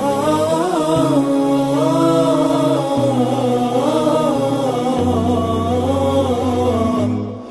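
Background song: a man's wordless melodic vocalising over long held low bass notes, in a devotional nasheed style. The music dips briefly at the very end.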